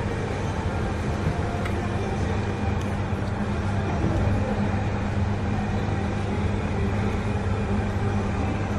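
Steady low machine hum, an unchanging drone.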